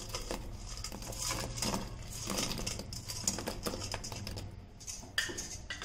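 Thick Manchurian gravy simmering in a pan on a low flame, its bubbles popping in small irregular clicks, as fried vegetable Manchurian balls are dropped into it, over a low steady hum. A single sharper knock comes about five seconds in.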